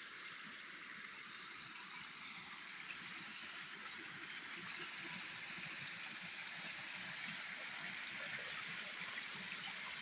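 Stream water spilling through and over a beaver dam of piled sticks and logs, a steady rushing trickle that grows a little louder toward the end.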